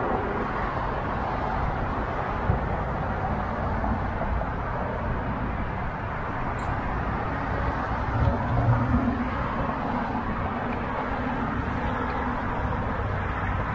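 Steady urban street ambience of road traffic, with a vehicle passing a little louder about two-thirds of the way through.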